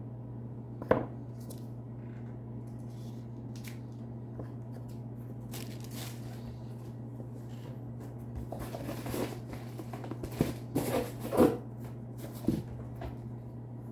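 Unboxing handling: one sharp click about a second in, then packaging rustling and several knocks of items being set down near the end, over a steady low hum.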